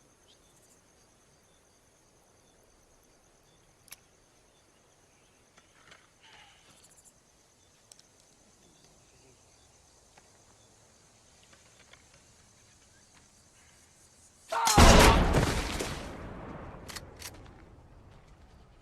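A faint steady insect trill with a few small clicks, then, near the end, a single loud blunderbuss shotgun blast that dies away over about two seconds.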